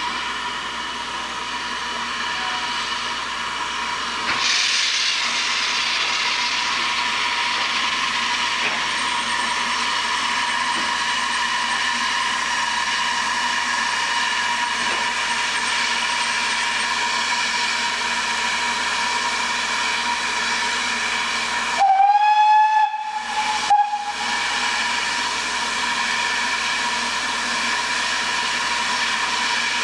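BR Standard Class 4 4-6-0 steam locomotive 75078 hissing steadily with steam from its cylinder drain cocks, the hiss growing louder about four seconds in as it moves off slowly. A little past two-thirds of the way through, its steam whistle sounds one steady note for about two seconds, then gives a short second toot.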